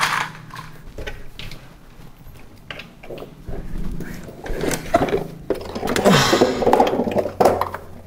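Handling noises of toy buses being stowed in a kitchen cabinet: scattered knocks and clicks, then a longer stretch of scraping and rustling near the end as the toy buses are pushed in onto the cabinet floor.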